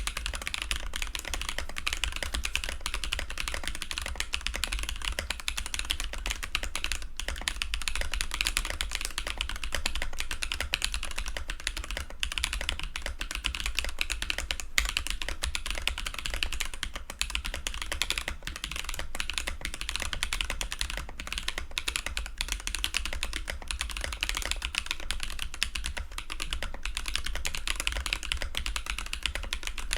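Steady, continuous typing on Glorious Panda tactile mechanical switches in a Switch Couture acrylic Alice-layout keyboard. Many quick keystroke clacks run together without pause.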